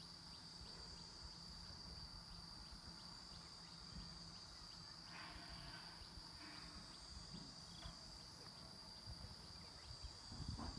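Faint field ambience: a steady, high-pitched insect drone, with a low rumble underneath.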